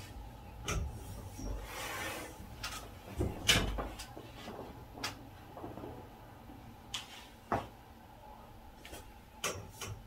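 Sharp pops and cracks from a person's back under bare feet pressing and stepping on it, several spread out with the loudest about three and a half seconds in, and a rustle of the towel being rubbed around two seconds in.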